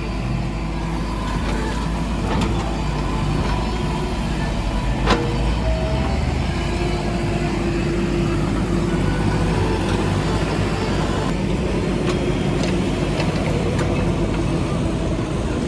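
Heavy diesel engine of earthmoving machinery running steadily, with one sharp metallic knock about five seconds in and a few lighter clicks.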